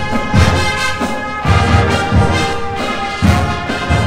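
A college marching band playing a brass-led tune, with sustained horn chords over heavy bass drum hits about once a second.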